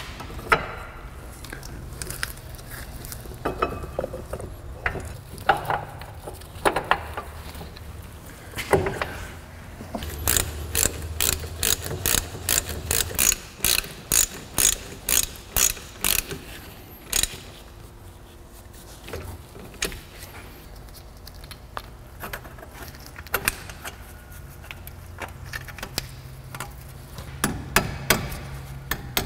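Hand ratchet wrench clicking in quick runs of about four clicks a second as the brake caliper bolts are turned during a brake pad change. Scattered metallic clinks and knocks come between the runs.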